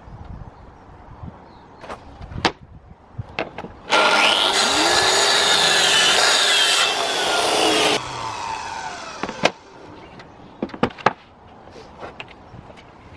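A power tool runs for about four seconds, starting and cutting off abruptly, between scattered knocks.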